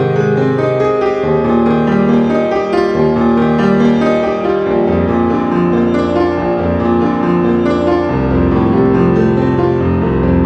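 Background music led by piano, with sustained notes and a fuller bass line from about eight seconds in.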